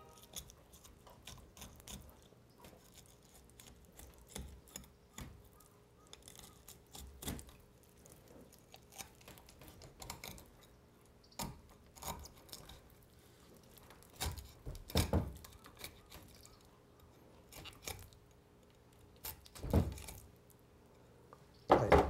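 Knife cutting along the backbone of a red sea bream on a wooden board: soft intermittent crunching and scraping as the blade passes the bones, with a few louder knocks of knife or fish against the board.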